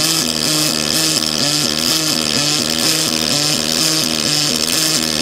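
Pulsed MIG welding arc from a Fronius Fortis welder running in SynchroPulse mode: a steady buzz whose pitch steps back and forth between two levels several times a second as the pulse switches between its two power settings, over a constant hiss.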